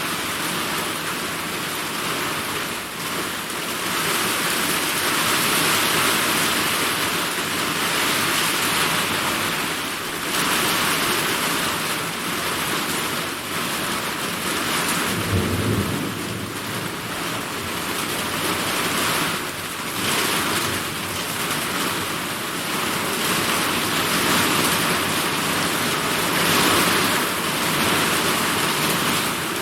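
Summer rainstorm: heavy rain pouring steadily, its hiss swelling and easing every few seconds, with a brief low rumble of thunder about halfway through.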